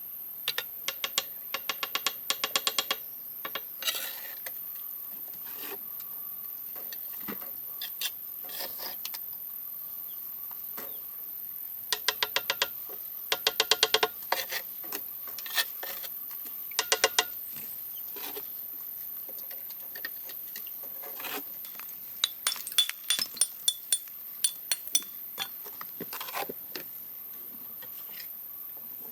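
Quick runs of light, clinking taps, several a second, coming in bursts a few seconds apart, over a steady faint hiss.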